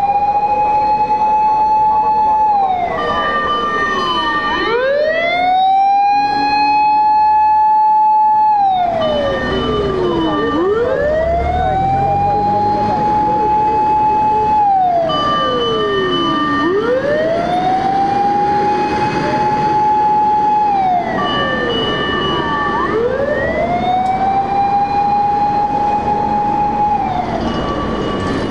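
A Japanese fire engine's siren wails in repeated cycles, about one every six seconds: each rises quickly, holds a high pitch for two or three seconds, then slides back down. The truck's engine rumbles underneath.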